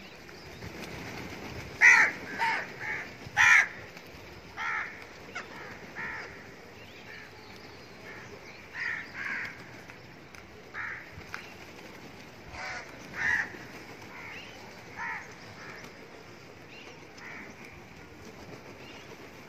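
A flock of crows cawing, with short separate caws scattered throughout; the loudest come about two and three and a half seconds in.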